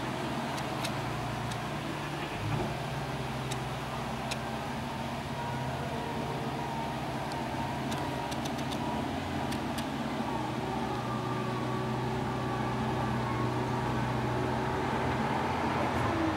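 Steady hiss of a rain shower over a low, steady hum, with faint scattered ticks of drops.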